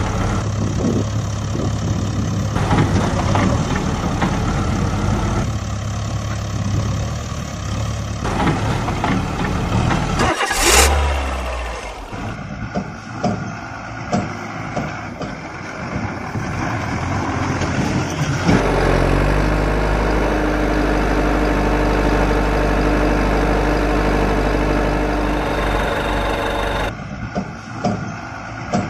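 Truck engine sound, idling and revving, changing abruptly several times. It has a short rising rev about ten seconds in and a rougher, clattering stretch after it.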